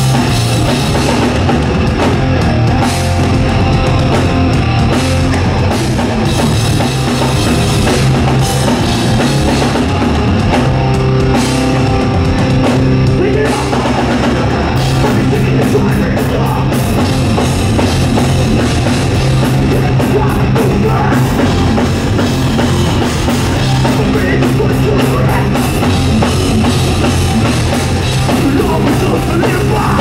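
Hardcore punk band playing live and loud: electric guitars, bass and drum kit through the hall's PA.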